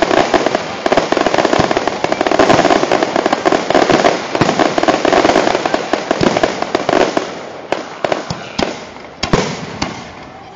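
Fireworks grand-finale barrage: a dense, continuous rattle of many overlapping bangs and crackles. After about seven seconds it thins to a few separate booms and fades near the end.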